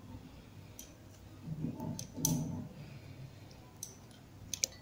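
Faint clinks and scrapes of a steel spoon against a steel mixer-grinder jar as soft boiled mango pulp is scooped into it: a handful of sharp clicks spread across a few seconds, with soft handling noise between them.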